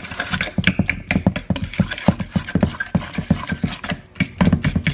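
A utensil beating wet batter ingredients in a mixing bowl: quick, irregular scraping clicks against the bowl, several a second.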